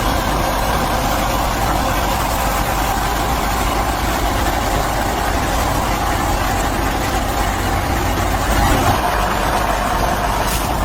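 Small motors of a miniature DIY toy tractor and thresher running steadily with a constant hum.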